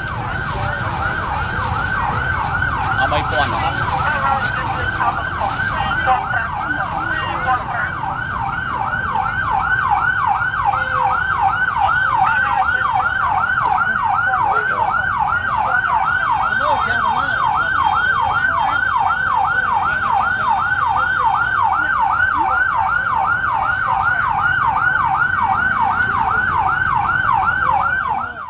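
A siren-like electronic wail: a quick sweep in pitch repeating about two and a half times a second without letup, over a low background din.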